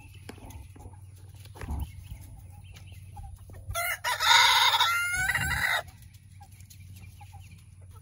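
A rooster crows once, one loud call of about two seconds near the middle, with soft clucking from the hens around it.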